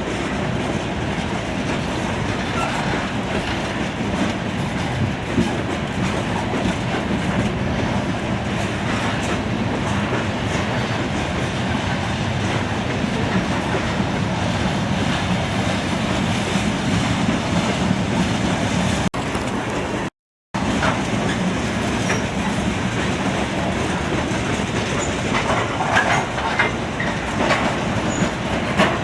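Norfolk Southern coal train's aluminum hopper cars rolling past, a steady rumble of wheels on rail with clickety-clack over the joints. The sound drops out completely for a moment about two-thirds of the way through, and faint wheel squeal comes in near the end.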